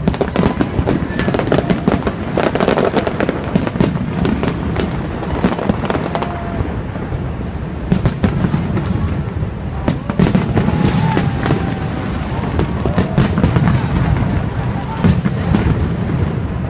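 Fireworks display: a rapid, irregular run of bangs and crackles over a continuous low rumble, with no let-up.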